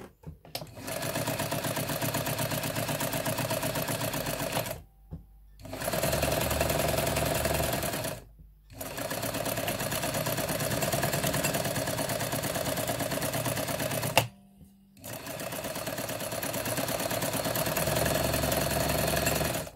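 Vintage Jones M949 sewing machine running at a steady speed, stitching through a fabric sample in four runs, with short stops about five, eight and fourteen seconds in, then stopping abruptly at the end.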